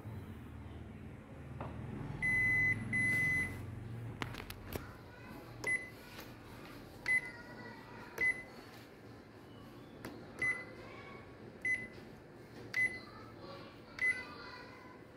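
Ricoh MP 5002 photocopier's operation panel beeping. Two longer beeps come about two seconds in, then short single beeps every second or so as touch-screen keys are pressed.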